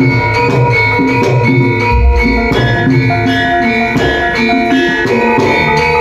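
Javanese bronze gamelan playing a gending: metallophones and gong-chimes ringing out a steady melody of struck notes over hand-drum (kendang) strokes, with a deep low boom about two seconds in.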